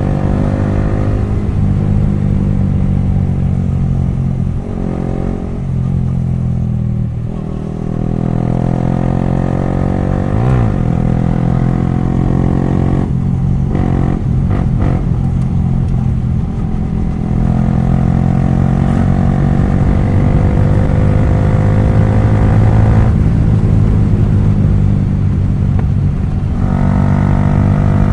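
Yamaha R15 V3's 155 cc single-cylinder engine, very loud through an exhaust with its dB killers removed, pulling under load on the road. The revs climb and fall as it runs through the gears, with a rising pull near the start and again near the end.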